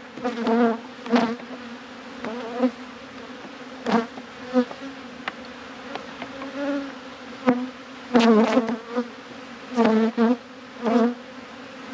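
Honey bees buzzing around an opened hive, a steady hum with individual bees flying close past the microphone several times, each pass a louder buzz that bends up and down in pitch. A few short clicks come in between.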